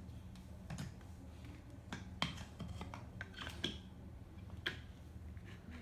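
Light, irregular clicks and knocks of wooden toy trains and track pieces being handled, about half a dozen spread over a few seconds.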